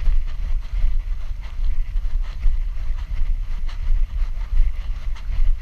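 Wind buffeting a GoPro's microphone strapped to a dog's back, a steady low rumble, with faint irregular scuffs and clicks over it.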